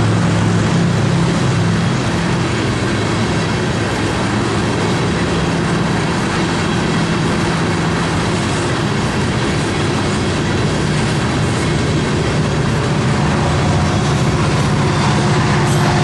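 A BNSF unit coal train's steel hopper cars rolling past close by, their wheels on the rail making a steady, loud rumble.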